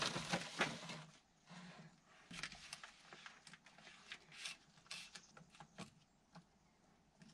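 Faint, irregular clicks, taps and scrapes of hand tools and a wrench on a pipe fitting set into a rough plaster wall, busiest in the first second and then scattered.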